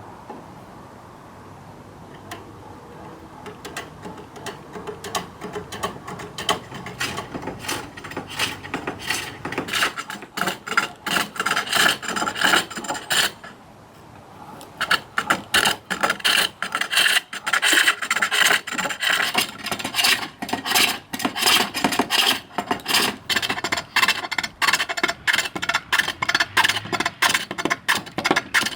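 A turning tool cutting a birch bowl blank on a foot-powered pole lathe, in a rapid run of short rasping strokes as the wood spins back and forth under the treadle. The cutting starts softly and grows louder, stops briefly about halfway, then goes on.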